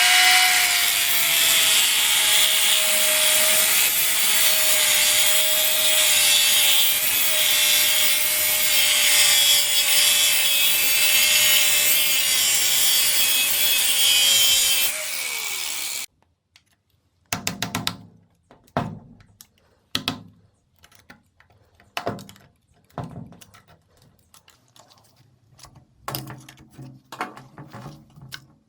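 An electric power tool runs steadily with a whine for about fifteen seconds, then spins down and stops. A series of separate knocks and clicks follows.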